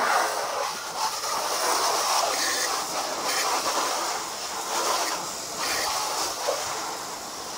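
Garden hose pistol-grip spray nozzle spraying water onto a car's body panels: a steady hiss of spray and splashing that swells and eases as the stream moves over the car.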